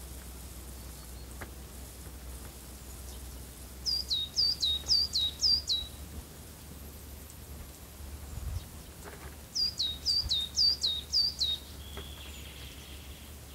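A small songbird singing two short phrases a few seconds apart, each a quick run of five or six high notes that slur downward.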